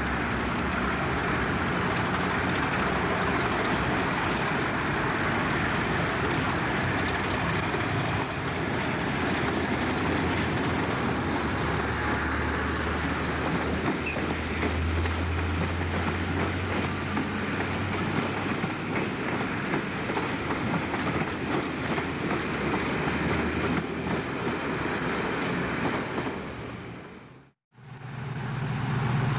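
Class 50 diesel-electric locomotive's engine running as it passes hauling a train of coaches, with the coach wheels clattering over rail joints and pointwork. The sound cuts out briefly near the end, then an engine drone returns.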